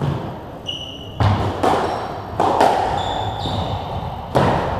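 Squash rally: about five sharp cracks of the ball off the rackets and the walls, each echoing in the enclosed court, with brief high squeaks of the players' shoes on the wooden floor in between.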